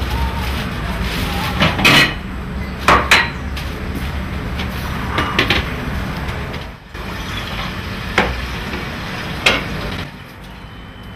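Kitchen clatter: pots, dishes and utensils clink and knock sharply every second or two, some with a brief metallic ring. Under them runs a steady low rumble that drops away near the end.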